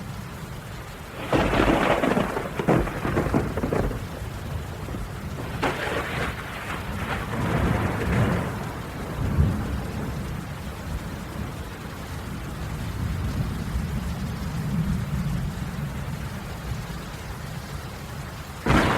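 Steady rain falling, with thunder: a sharp crack a little over a second in that rumbles for a few seconds, a second crash about six seconds in that rolls on for a few seconds more, low rumbling after it, and a new sudden crack just before the end.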